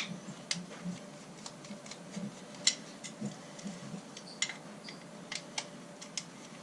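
Small, irregular clicks and taps from a plastic light switch and its wires being handled and worked on at a bench, over a faint steady hum.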